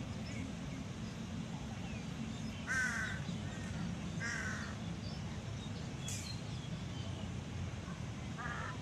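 A crow cawing three times, short harsh calls about a second and a half apart and then one more near the end, over a steady low rumble.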